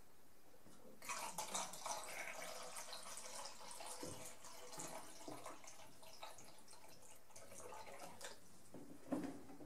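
Water poured from a large plastic jug of distilled water into a black film developing tank, a faint trickling and splashing from about a second in, to pre-wet the film. A light knock near the end.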